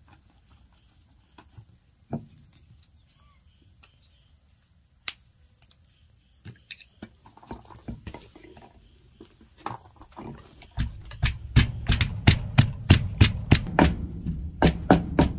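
Wooden pestle in a wooden mortar: a few scattered light knocks and clicks, then, about two-thirds of the way in, steady pounding at about three strikes a second, each a dull thud with a sharp knock.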